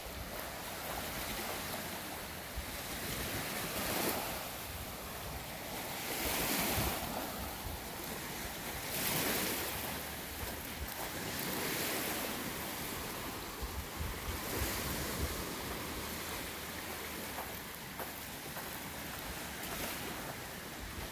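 Wind with small waves washing onto a gravelly lakeshore, the wash swelling and easing every two to three seconds, with wind buffeting the microphone.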